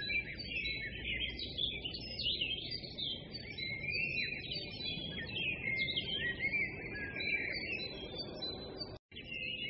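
Many small birds chirping and twittering without pause over a low background rumble; the sound cuts out for a moment near the end.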